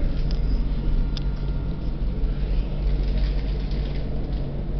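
Tram running along its track, heard from inside the car: a steady low rumble, with one brief high squeak about a second in.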